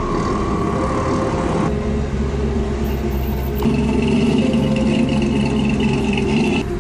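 Lifted pickup trucks' engines running as they drive slowly past. A steady high whine joins the engine sound about halfway through and cuts off near the end.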